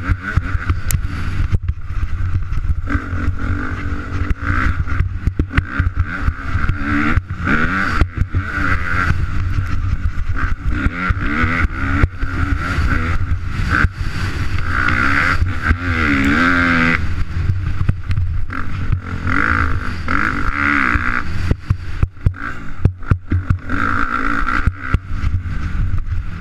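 2013 Suzuki RM-Z250's single-cylinder four-stroke engine revving up and down again and again as the dirt bike is ridden hard around a motocross track, heard from the rider's helmet camera. Frequent knocks and jolts from the rough ground.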